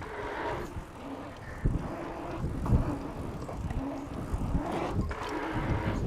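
Marin Alcatraz dirt jump bike rolling round a pumptrack: steady tyre noise with wind on the microphone, and a couple of low thumps about one and a half and two and a half seconds in.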